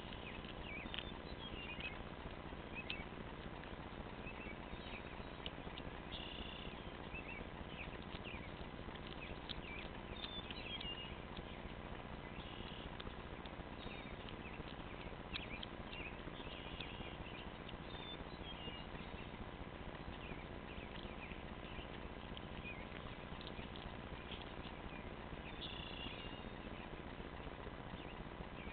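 Cat chewing on a rabbit carcass: soft, irregular clicks and crunches. Small birds chirp now and then in the background over a steady hiss and faint hum.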